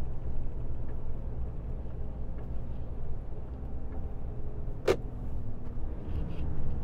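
Truck engine running with a low, steady drone, heard from inside the cab while driving slowly. One sharp click sounds about five seconds in.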